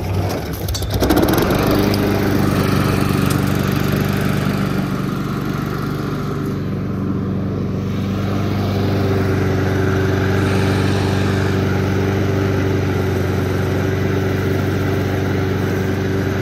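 Honda walk-behind lawn mower's small engine running steadily, settling into an even note about a second in.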